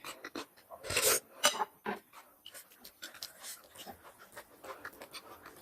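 Close-up eating sounds: a short loud slurp about a second in, then a run of soft, irregular wet chewing and lip-smacking clicks.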